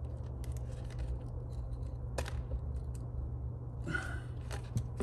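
Light clicks and scrapes of a small repair tool working on a phone's internal parts, over a steady low hum.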